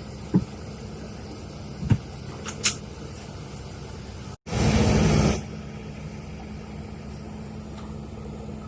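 Diesel engine of heavy earthmoving equipment running steadily, with a few sharp knocks in the first three seconds and a louder burst of noise for about a second just after the midpoint.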